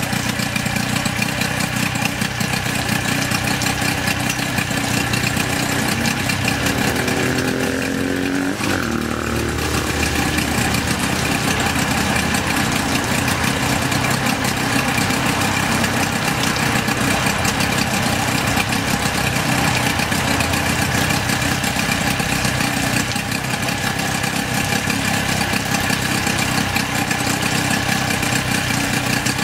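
Nissan 8 hp two-stroke longshaft outboard motor running steadily, its lower unit in water.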